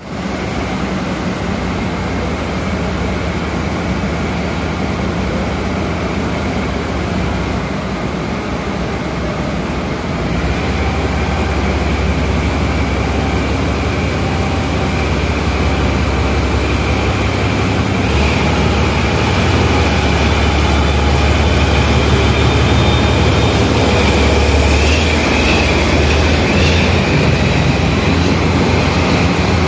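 DE10 diesel-hydraulic locomotive's diesel engine running with a steady low drone, growing louder about ten seconds in and again in the second half as the train pulls out. High squeals are heard in the second half.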